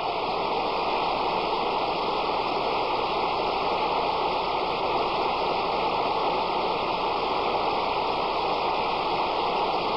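Studio audience applauding steadily after the song ends.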